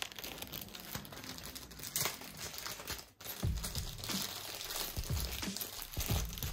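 Clear plastic bag of small screws being crinkled and worked open by hand.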